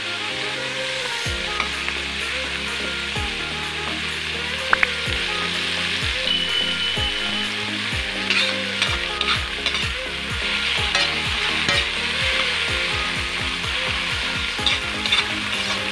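Ginger, onion and tomato sizzling in hot oil in a wok while a metal ladle stirs and scrapes them against the pan; the scrapes and clinks come more often in the second half.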